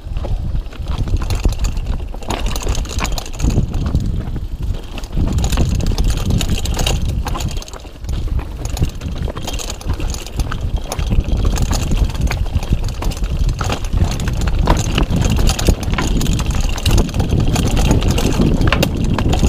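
Mountain bike rattling and clattering over rocks and ruts on a fast trail descent, many sharp knocks over a steady low rumble of wind on the microphone.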